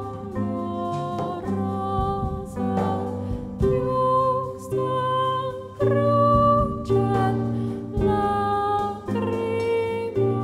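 Concert harp and a woman's voice performing a slow piece: the harp plays plucked chords over low bass notes that change about once a second, under sustained sung notes.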